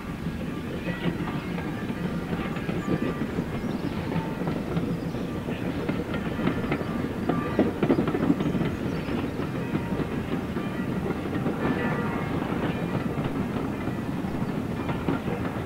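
Steam locomotives hauling a passenger train, their exhaust chuffing steadily under load, with the rumble of the train along the track.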